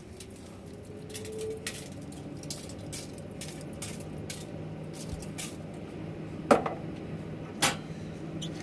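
Spice shaker jars being handled and shaken while seasoning meat: a run of small clicks, taps and rattles, with two sharper knocks about six and a half and seven and a half seconds in. A low steady hum runs underneath.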